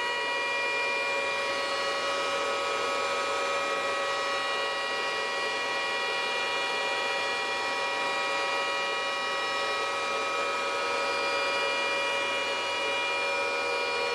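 Bitmain Antminer S9 SE bitcoin miner running, its cooling fans spinning at high speed: a steady, unchanging hiss with several steady whining tones on top.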